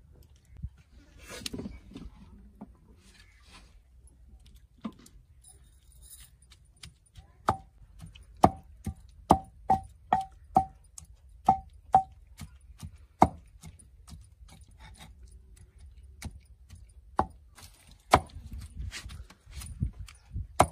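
Wooden pestle pounding boiled radish in a mortar bowl: a run of about ten sharp knocks, roughly two a second, each with a short ringing note from the bowl, then a couple of single knocks near the end. The radish is being mashed into a paste for radish kofta.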